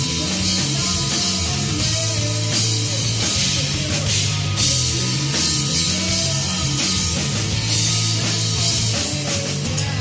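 Live rock power trio playing a song: electric guitar, bass guitar and drum kit together, loud and steady.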